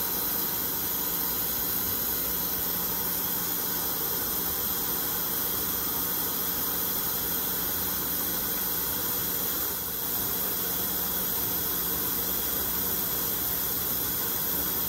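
Steady hiss with a faint low hum from machinery running in the background, with a brief dip about ten seconds in.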